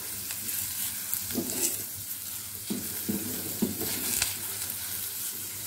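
Chopped onion sizzling in hot desi ghee in a steel pan over a low flame, being stirred, with the spatula scraping the pan several times. The onion is being stir-fried until soft and translucent.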